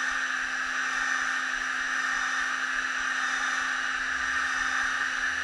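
Hot air gun running steadily: an even rush of blown air over a constant low motor hum. It is heating the screen's water-resistant adhesive to soften it so the screen can be lifted.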